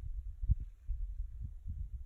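Wind buffeting a phone's microphone: low, irregular rumbling with thumps, the strongest about half a second in.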